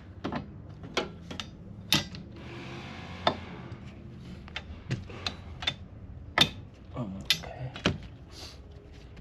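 Irregular metal clicks and knocks as a wiper arm is handled and fitted onto its spindle, with a brief rustle about two and a half seconds in.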